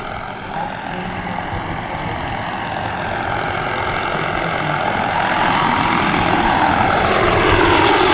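Turbine-powered scale model Bell AH-1 Cobra helicopter flying a low pass, its turbine whine and rotor noise growing steadily louder as it approaches. The pitch drops as it sweeps past near the end.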